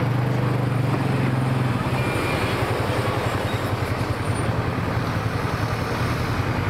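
Fire-truck engines running as the trucks roll slowly past. A steady engine tone fades out about two seconds in, and a pulsing low rumble follows.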